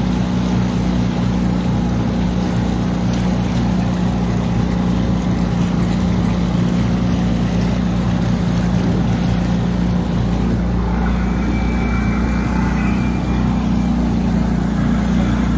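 A 25 hp outboard motor running steadily under way, a constant low engine drone with the rush of water and air over it.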